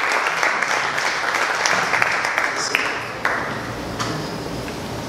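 Audience applauding, the clapping thinning and dying away about three seconds in, leaving a few last scattered claps.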